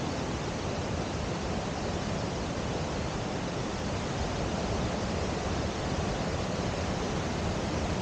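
Waterfall: white water of a mountain river cascading over boulders, a steady, even rushing noise with no change.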